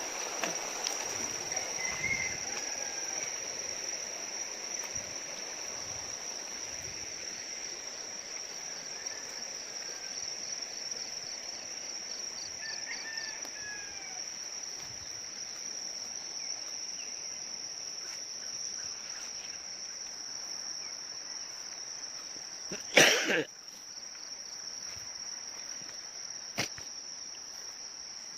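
Insects, likely crickets, trilling in one steady high note, with a few faint bird chirps. About 23 seconds in, a brief loud sound stands out, and a small click follows a few seconds later.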